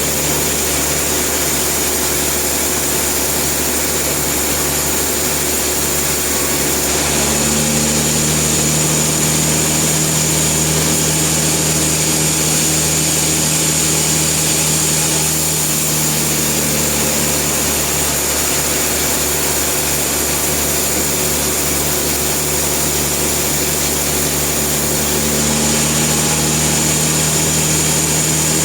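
Sawmill machine running steadily with a steady high whine. Its level rises slightly about seven seconds in and again near the end.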